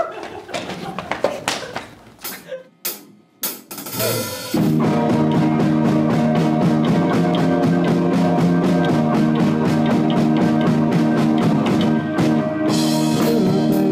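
A few scattered hits, then about four and a half seconds in a rock band comes in all at once: electric guitar, bass guitar and a drum kit playing a steady beat.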